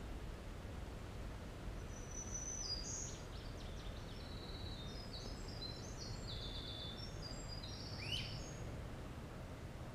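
Winter wren singing one long, continuous song of rapid high trills and notes, lasting about seven seconds, over a steady low rumble. Near the end a short note sweeps sharply upward.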